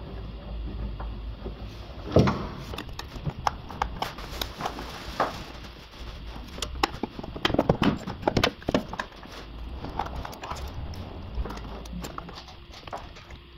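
Irregular clicks and knocks of hands handling parts under a car, over a low steady hum. The loudest knocks come about two seconds in and in a cluster around seven to nine seconds in.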